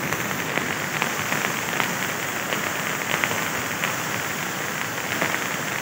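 Steady hiss of heavy rain falling, with faint scattered drop ticks.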